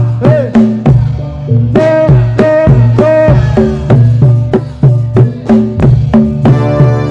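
Jaranan gamelan accompaniment: hand drums played in a quick, driving rhythm, many strokes bending up and down in pitch, over sustained low ringing tones.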